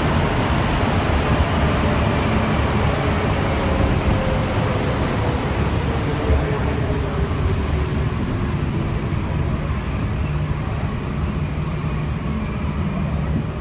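Rumble of a Concarril NS-88 rubber-tyred metro train, heard from inside the car, with an electric whine that slides down in pitch through the middle as the train slows. The rumble eases a little near the end as it runs into a station.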